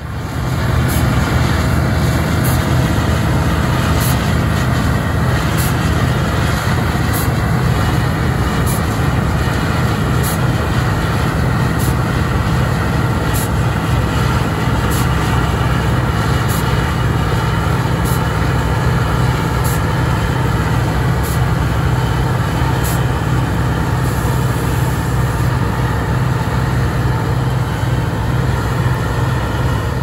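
New Holland TX68 Plus combine harvester working through standing barley: its 310-horsepower Iveco engine runs under steady load over the constant whirr and rattle of the threshing machinery. A faint high tick repeats about every second and a half.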